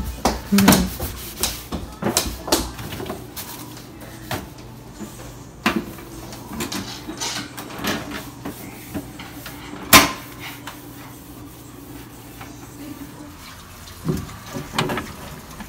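Plastic refrigerator drawers, door bins and bagged food being handled and moved: a string of clacks and knocks, with one loud clack about ten seconds in, over a low steady hum. Near the end comes a short cluster of knocks as an air fryer basket is pulled out by its handle.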